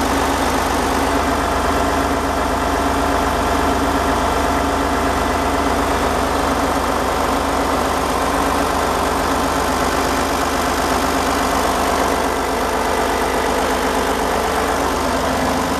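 Boat's inboard diesel engine running steadily, heard up close in the engine room, with a loud, even, unchanging drone.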